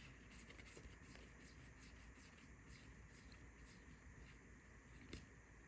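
Near silence, with faint scattered clicks and soft rustles of trading cards being handled and flipped.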